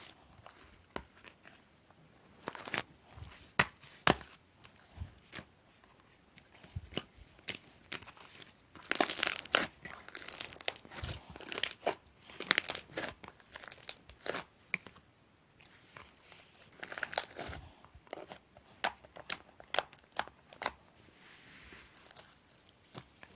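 Crinkling, tearing and crunching handling sounds: sharp, irregular clicks, with denser rustling spells about nine, twelve and seventeen seconds in.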